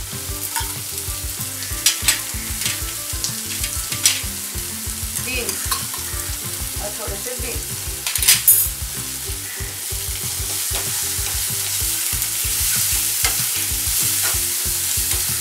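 Chopped capsicum and French beans sizzling in hot oil in a nonstick wok, with a few sharp clinks of a steel spoon and bowl against the pan as they are tipped in. From about ten seconds in, a spatula stirs the vegetables and the sizzle becomes fuller and steadier.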